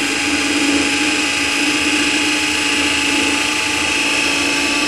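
Large compound-wound DC motor, rated for 220 V, running off 24 V from two batteries: a steady hum with a constant high-pitched whine over it.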